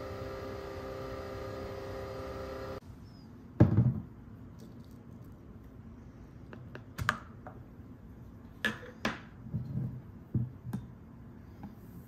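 Nespresso capsule coffee machine running with a steady whir as it brews, cutting off about three seconds in. Then a dull thump and a series of light clicks and knocks as a milk frother's lid and jug are handled.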